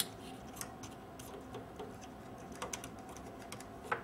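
Light clicks and taps as a RAM module is handled and lined up over a motherboard memory slot, with one sharper click near the end.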